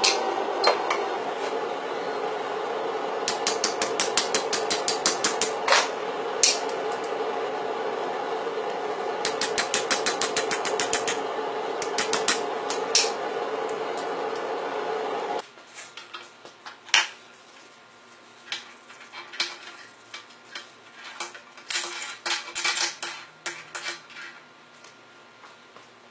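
Hammer striking hot steel on an anvil while forging a bottle opener, in quick runs of about eight light blows a second over a steady hum that cuts off suddenly about fifteen seconds in. After that come sparser, quieter metal taps and clinks, with one sharper knock.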